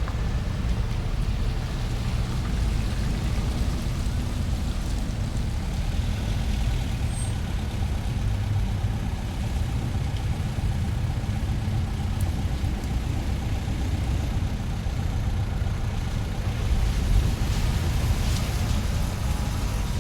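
Shopping-center parking lot ambience: a steady low rumble of car engines idling and driving by. A light clatter of clicks and rattles comes in near the end.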